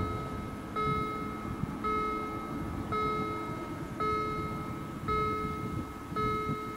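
Level-crossing warning bell ringing with its barriers down, the sign that the crossing is closed for an approaching train. It gives one steady, ringing electronic-style ding roughly every second, six in all, over a low background rumble.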